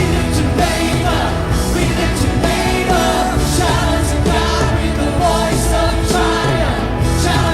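Live worship band playing a song, with singing over drums, bass and keys.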